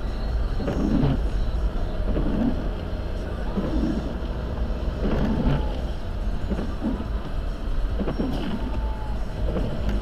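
Car driving, heard from inside the cabin: a steady low road-and-engine rumble, with fainter sounds coming and going over it.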